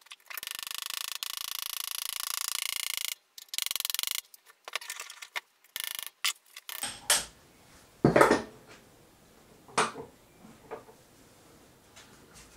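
Hammer blows through a soft drift, knocking the mini mill's spindle shaft out of its bearing housing: several separate knocks in the second half, the loudest about eight seconds in. Before them comes a fast, dense run of sharp clicks lasting about three seconds, then a shorter run and a few scattered clicks.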